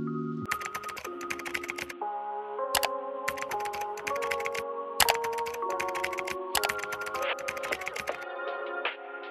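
Rapid computer-keyboard typing clicks in three runs of a couple of seconds each, over mellow instrumental background music.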